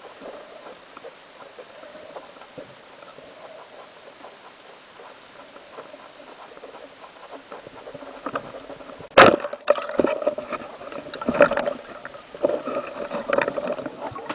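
Underwater, a speargun fires with one sharp crack about nine seconds in, after a stretch of faint, steady murky water noise. Irregular knocks and clatter follow: the spear and line working against the struck fish.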